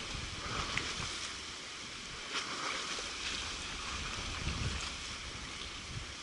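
Wind gusting on the microphone over choppy sea washing against rocks, with a few faint ticks.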